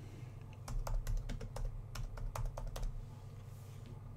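Typing on a computer keyboard: a quick run of keystrokes starting a little under a second in and lasting about two seconds, with a steady low hum underneath.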